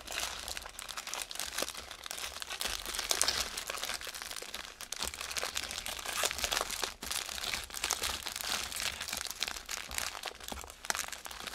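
Small plastic bags of diamond painting drills crinkling and rustling as they are handled and folded, with many quick crackles throughout.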